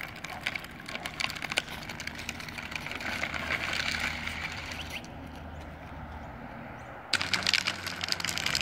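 Drift trike sliding on asphalt, its rear wheels scraping across the surface: a gritty hiss shot through with crackling clicks. It thins out for about two seconds past the middle and comes back sharply.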